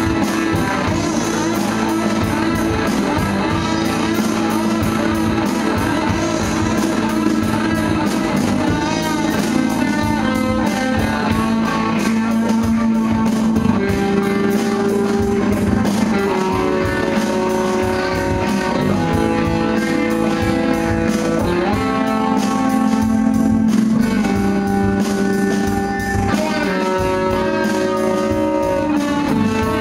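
Live rock band playing: two distorted electric guitars over bass guitar and a drum kit, with long held guitar notes that change every second or so through the second half.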